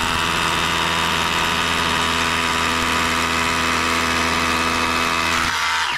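Dewalt DCH172 cordless SDS rotary hammer drilling into a concrete block with an 8 mm bit, running at a steady pitch and level, then stopping suddenly near the end.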